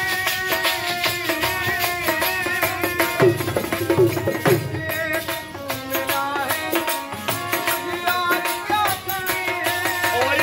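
Live folk music from a small street troupe: a dholak drum beating, a harmonium holding chords, a flute playing a wavering melody, and a jingling rattle-type percussion keeping time. The drum strokes come heaviest about three to four seconds in.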